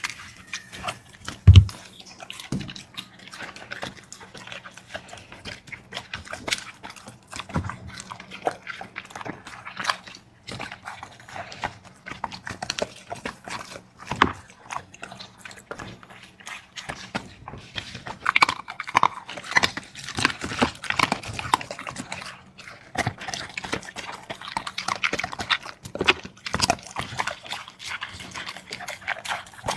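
Dog eating from a bowl: fast, irregular crunching, chewing and slurping that keeps going, busiest about two thirds of the way through, with one loud thump about a second and a half in.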